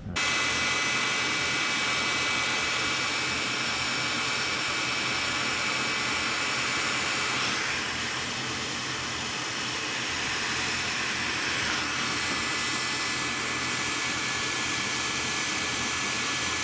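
Electric heat gun blowing steadily, shrinking solder-seal heat-shrink terminals and melting their solder onto the wire joint. It switches on abruptly: a steady rushing hiss with a faint whine, whose tone shifts slightly about seven and a half and twelve seconds in.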